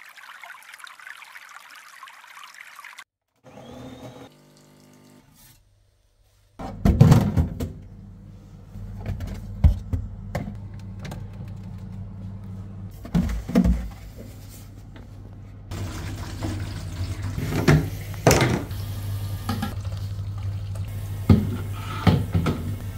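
Plastic spray bottles and containers knocking and clattering as they are handled, over a steady low hum.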